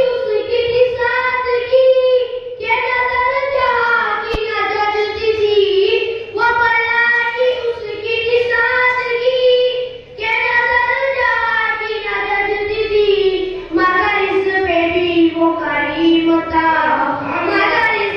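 A young boy singing a naat, an Urdu devotional poem in praise of the Prophet, unaccompanied into a microphone. He sings in long held, melismatic phrases with short breaks for breath every few seconds.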